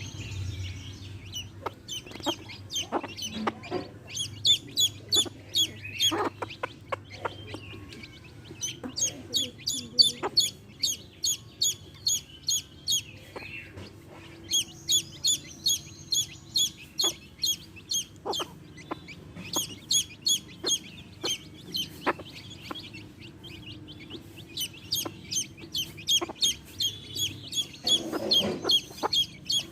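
Baby chicks peeping: high, rapid chirps several times a second, in runs of a few seconds with short breaks. A hen clucks low among them.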